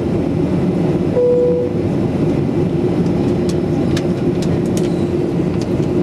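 Steady in-flight cabin noise of a Boeing 737-8200 heard from a window seat: the rush of airflow and the hum of its CFM LEAP-1B engines. A brief single tone sounds about a second in.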